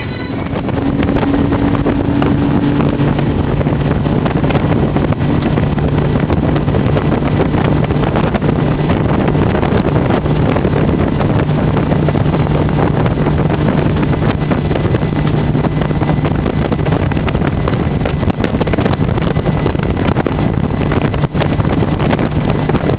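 Hurricane 2400 deck boat under way, its engine running steadily with a low drone. Heavy wind buffets the microphone over it.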